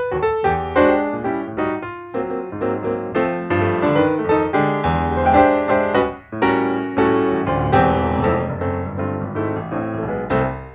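Background piano music, a flowing melody of struck notes over chords, fading out near the end.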